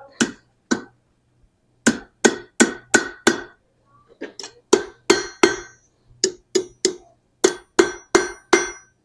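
Blacksmith's hammer striking quarter-inch steel round stock over the anvil horn: sharp ringing blows in short runs with brief pauses, a few lighter taps in the middle, truing up the eye loop of a forged eye spike.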